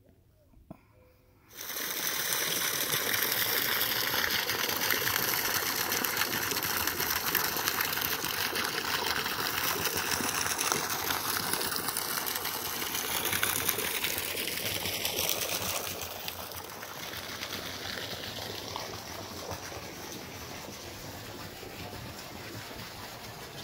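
Water under high pressure jetting from a hose and pipe waterjet fed by a lawn irrigation pump, gushing and splashing steadily. It starts suddenly about a second and a half in and turns quieter about two-thirds of the way through.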